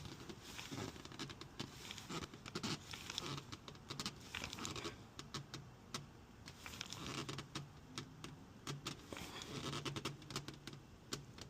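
Faint clicks and rustling of gloved hands hand-tightening a new spin-on oil filter onto its housing.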